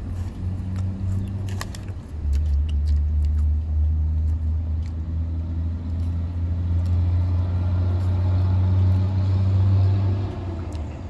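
Low, steady rumble of a motor vehicle running close by. It grows louder about two seconds in and eases off near the end, with a few small clicks of fries being chewed over it.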